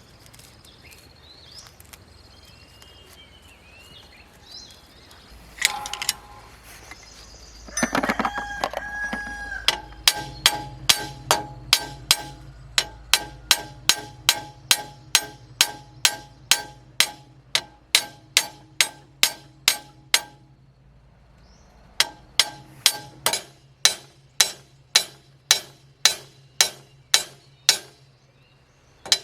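A hammer striking metal in steady blows, about two a second, each blow ringing briefly; the hammering pauses for about two seconds and starts again. Just before the hammering begins a rooster crows, and small birds chirp before that.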